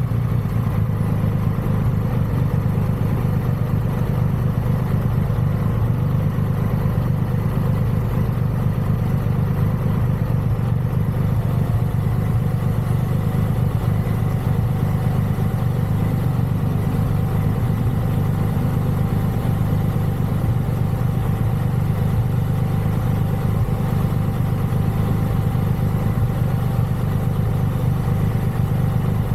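Triumph Rocket 3's inline three-cylinder engine idling steadily at a standstill.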